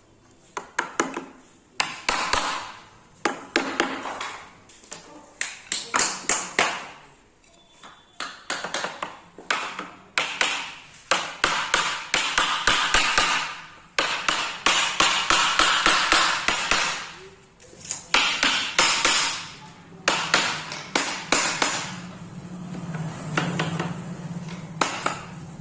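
Woodworking on a wooden door: a run of quick sharp taps and knocks mixed with repeated noisy strokes, each lasting a second or two.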